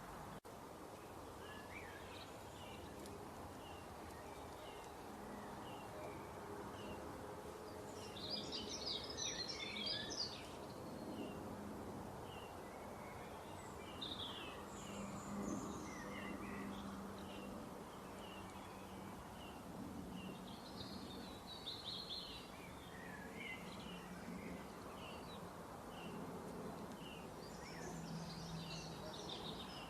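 Small birds chirping over and over, with several busier bursts of twittering, above a faint steady low hum.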